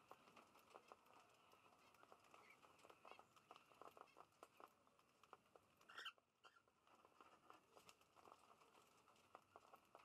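Faint, rapid irregular clicking of cockatiels pecking and cracking seed from the floor and a feed bowl, with one short chirp about six seconds in.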